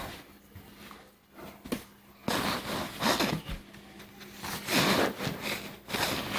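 Rustling and shuffling of someone moving about with the camera in hand, starting about two seconds in after a couple of faint clicks. A faint steady hum sits underneath.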